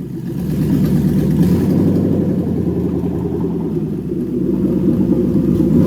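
Toyota 1UZ-FE V8 engine running just after starting, its speed rising about a second in, easing off slightly around four seconds and picking up again.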